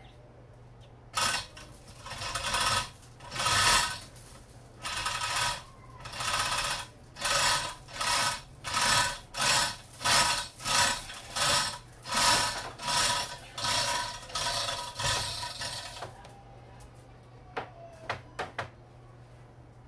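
Manual chain hoist being worked by its hand chain to lower a heavy load: about twenty strokes, each a rattling run of chain links clicking through the hoist, coming faster through the middle and stopping about sixteen seconds in. A few light clicks follow as the load settles.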